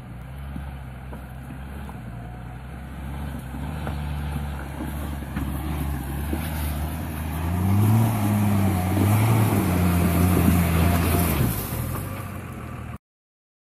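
Nissan Patrol Y60 off-roader's engine running as it crawls up a rocky track, growing louder as it approaches. The revs rise and fall a couple of times in the loudest stretch near the end, then the sound cuts off suddenly.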